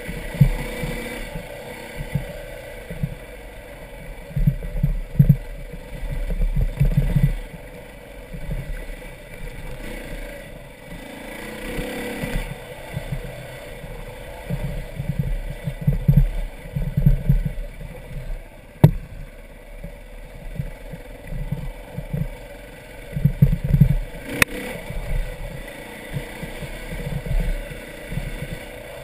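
Dirt bike engine running under changing throttle on a rough trail, heard through a helmet-mounted camera, its note surging and easing. Twice a sharp knock cuts through.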